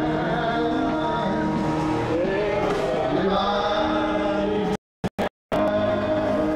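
Church worship music: a man sings into a microphone over sustained held chords. The sound cuts out briefly twice about five seconds in.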